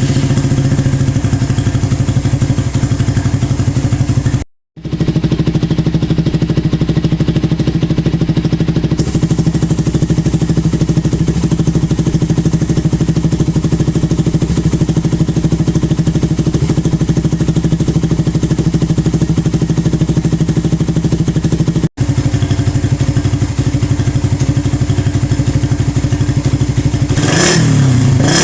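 Suzuki Raider R150 Fi's single-cylinder four-stroke engine idling steadily through an exhaust with a 51 mm big elbow header and canister muffler, with two brief gaps in the sound. Near the end it is revved up and down.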